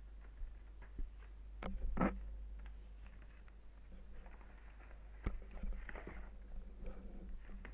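Hands handling unboxing packaging: a paper leaflet rustling, a few sharp taps and knocks, the loudest about two seconds in and another about five seconds in, then soft rustling of a foam wrap inside a cardboard box.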